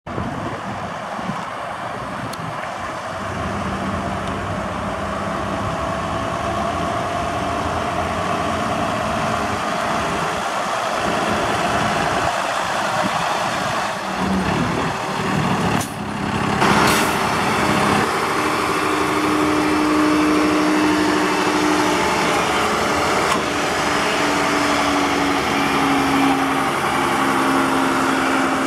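Diesel engine of a yard spotter truck (terminal tractor) running as it moves about, with two short hisses about sixteen seconds in, then idling steadily close by.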